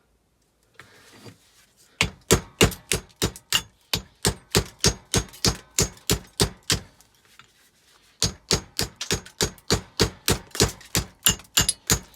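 Rapid hammer blows bashing apart a magneto, about four strikes a second, in two runs with a short pause in the middle.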